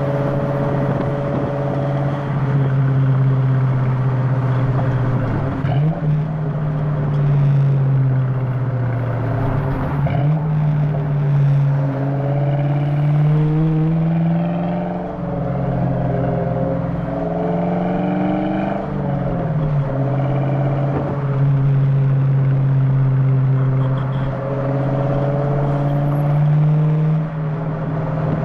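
1997 SVT Cobra's 4.6-litre DOHC V8 running through a BBK off-road X-pipe and Flowmaster 40 series mufflers, heard from inside the cabin while driving. Its note rises steadily under throttle and drops sharply several times as the five-speed manual is shifted.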